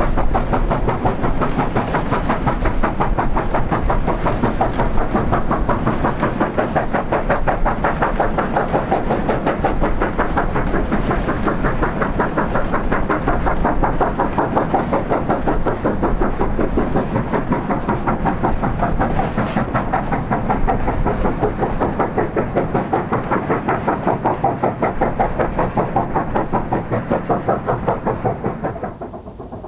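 China Railways JS class 2-8-2 steam locomotive working under steam with a train of mine wagons, its exhaust beats coming in a fast, steady rhythm. The sound drops away suddenly near the end.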